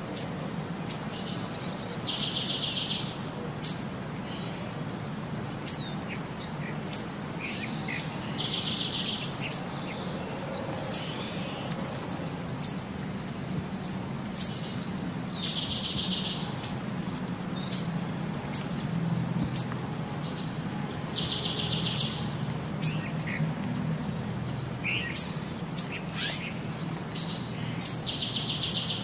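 Birds chirping: sharp high chirps come a few times a second, and a short buzzy trill repeats at regular intervals of about six seconds, over a low steady background hum.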